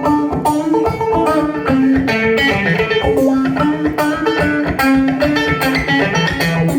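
Clawhammer banjo playing an instrumental passage: a quick, steady run of plucked notes with no singing.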